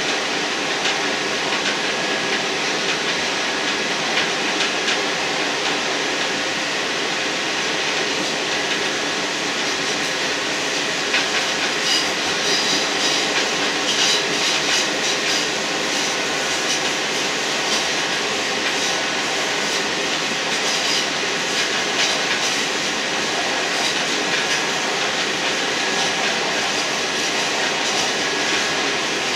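Diesel multiple-unit railcar (British Class 158-derived) in motion: steady running noise of the wheels on the track and the train under way. Short high-pitched squeals come in from about twelve seconds in and again near the end, as the train takes curves.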